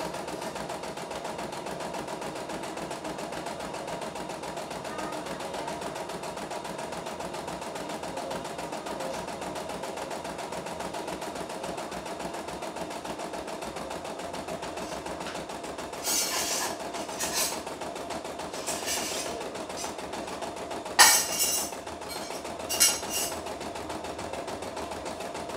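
CNY E960 computerised embroidery machine stitching steadily, its needle running at a fast even rate while the hoop moves the fabric. In the last ten seconds a few louder brief noises and one sharp click, about 21 seconds in, stand out above it.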